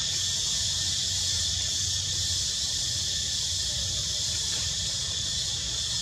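Steady, high-pitched drone of an insect chorus, unbroken throughout, with a low rumble underneath.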